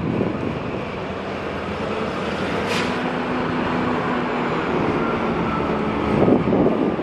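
KLW SE15B diesel locomotive rolling slowly toward the listener, its engine running with a steady low drone. There is a brief sharp click about two and a half seconds in, and the sound swells near the end.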